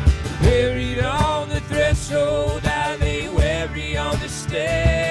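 Live country-style band playing: strummed acoustic guitars and electric bass keep a steady beat, with a voice singing the melody over them.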